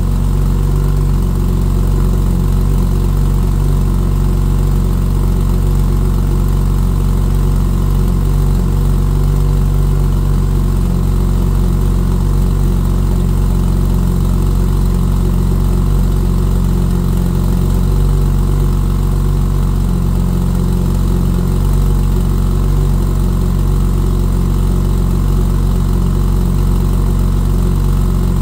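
Twin-turbo flat-six of a 1000whp Porsche 996 Turbo running on E85, idling steadily through its exhaust.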